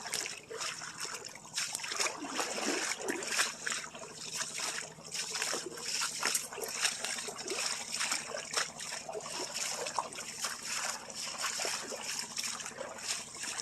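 Water from a small running stream trickling and splashing in a steady babble of many small splashes.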